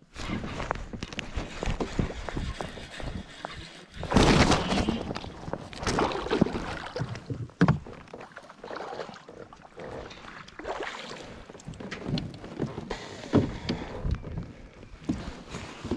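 Water splashing and sloshing with knocks and rattles on a plastic fishing kayak while a fish is fought to the boat and netted, with the loudest rush of splashing about four seconds in.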